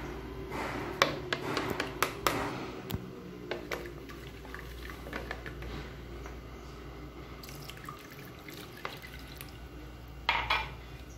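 Raw eggs being beaten in a plastic bowl, with a quick run of clicks and taps from the utensil against the bowl. After that, milk is poured in with a splashing trickle, and a few louder knocks come near the end as a plastic spatula stirs the mix.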